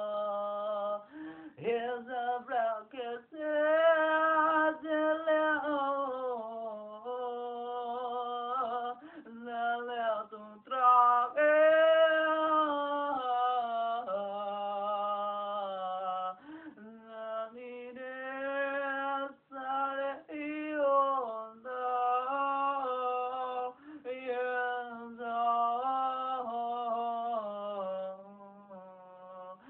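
A solo voice singing unaccompanied: a slow melody of long held, gliding notes in phrases with short breaks for breath.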